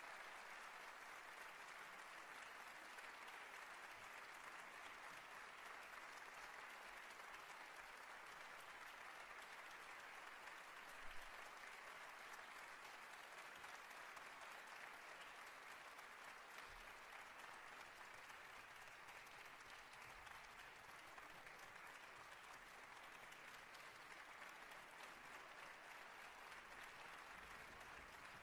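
Near silence: a faint, steady hiss of recording noise, with one small knock about eleven seconds in.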